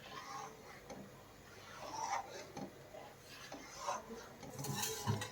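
A spoon scraping around a pan as thick besan halwa is stirred while it cooks, in several uneven strokes.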